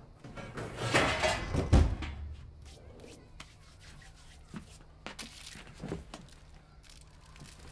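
Rustling and rubbing with a dull thump about two seconds in, then a few light clicks and taps, the sounds of people moving around a table set with china.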